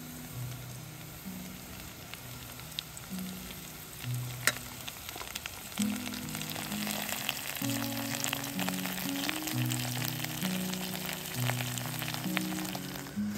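Diced raw meat frying in a metal camping pot on onions and carrots, a crackling sizzle that grows denser and louder about six seconds in as it is stirred. A sharp tap sounds about four seconds in.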